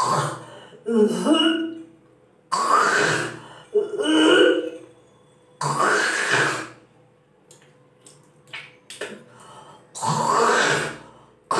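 A woman hawking and retching, making forced throat-clearing, gagging and vomiting noises and spitting. There are about six loud bursts, each about a second long, with a quieter stretch of small throat sounds shortly after the middle.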